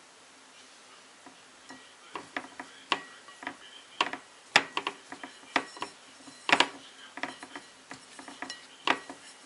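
Fingers pressing and turning a small smelt in flour on a ceramic plate. The sound is irregular taps, clicks and scrapes against the plate, starting about a second in.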